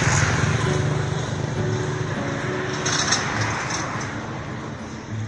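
Rumble of a passing motor vehicle, fading gradually toward the end, with a brief crackle about three seconds in.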